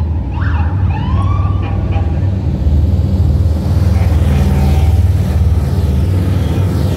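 Police motorcycle engines rumble steadily as they ride past. From about half a second to a second and a half in, a few short rising-and-falling siren whoops sound.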